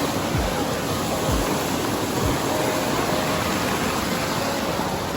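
Waterfall rushing: a steady, loud hiss of falling water, with a few dull low thumps.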